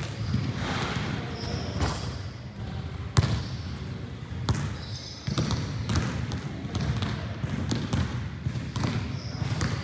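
Basketballs bouncing on a hard gym floor, irregular thuds that echo in the large hall, with short high squeaks of sneakers on the court now and then.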